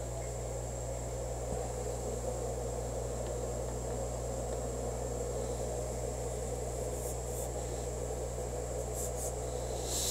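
Hardinge HLV-BK toolroom lathe's drive running steadily, a constant low hum with a faint high whine, and a few light metallic clicks near the end.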